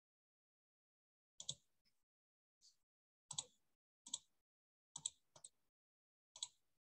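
Faint computer mouse clicks: about six, each a quick double click-and-release, spaced roughly a second apart, starting about a second and a half in.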